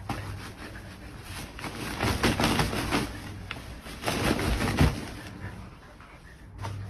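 A husky tugging and shaking a padded fabric dog bed on a wooden floor: irregular bursts of scuffing and rustling with soft thumps, loudest about two to three seconds in and again near five seconds.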